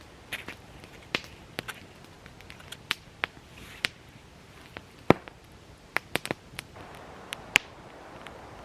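Dry wood cracking and popping: irregular sharp snaps, one or two a second, with a few softer rustles between them.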